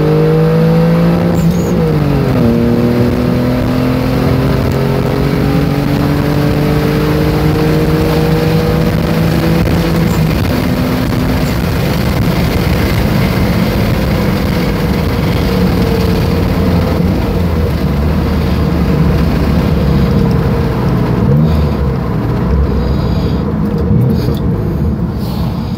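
Dodge Stealth twin-turbo 3.0-litre V6 accelerating, heard from inside the cabin. The engine note rises, drops sharply at an upshift about two seconds in, then climbs steadily again until about ten seconds. After that it settles into a steady cruise under road and tyre noise, easing off slightly near the end.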